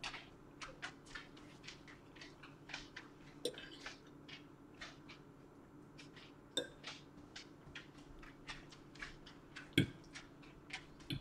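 Close-up chewing of soft rotini pasta in cream sauce: a steady run of small, wet mouth clicks. A few sharper clinks of a fork against the plate stand out now and then.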